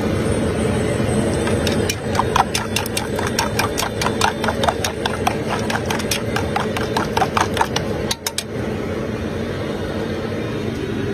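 Metal whisk beating egg batter in a metal bowl: a fast, even run of clinks, about five a second, that starts about two seconds in and stops near the end, over a steady background rumble.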